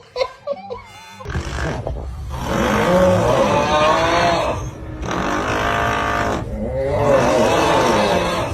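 A person snoring loudly, with about three long, rattling snores one after another starting about a second in.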